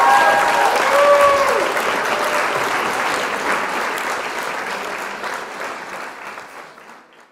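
Crowd applauding, with a few cheering whoops in the first second or so, fading out gradually to nothing at the end.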